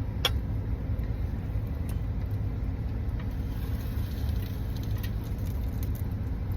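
Steady low rumble, like a vehicle engine running, with a single sharp click shortly after the start.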